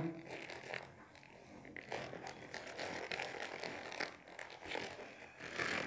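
Plastic courier mailer crinkling and rustling as hands handle it and work at its stuck-on invoice pouch, a quiet run of small crackles and scrapes.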